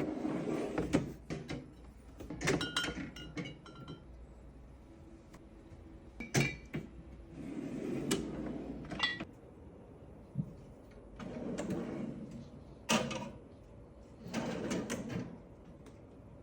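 Drink cans and bottles being handled and set into a drinks fridge: a series of knocks and clatters in several bouts with short pauses between, some with brief ringing clinks.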